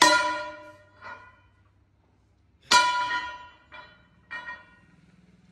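Hammer blows on steel, each one ringing out like a bell: two hard strikes with long rings and three lighter taps between them.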